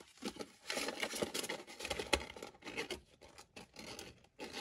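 A paper US dollar bill rustling and scraping as it is handled and slid into a clear plastic binder envelope, with fingers rubbing on the plastic sleeve: a run of short scratchy rustles, with a sharp tick about two seconds in.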